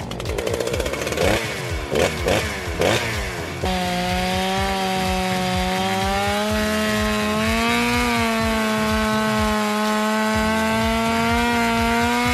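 Cartoon machine sound effects: first a few seconds of quick, wavering, sweeping tones, then a steady buzzing whine, a little like a power tool, held for about eight seconds with a slight rise in pitch and cut off abruptly.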